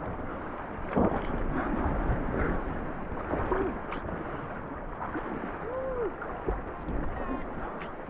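Rushing whitewater of a flooded river splashing against an inflatable raft, heard from a camera on the raft, with wind buffeting the microphone and a louder burst of water about a second in. Brief faint voices from the rafters come through now and then.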